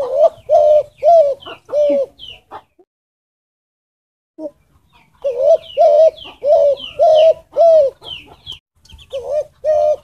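Spotted dove cooing: runs of evenly spaced coos, about four, then a silent break of a couple of seconds, then a longer run of coos.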